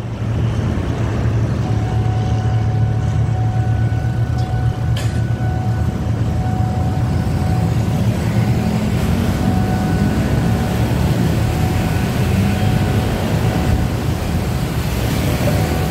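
The tail of a passenger train rolls past over a level crossing, its low rumble fading in the first couple of seconds. From about halfway on, a crowd of motorcycles and cars moves off across the tracks, their engines running together in a steady traffic din.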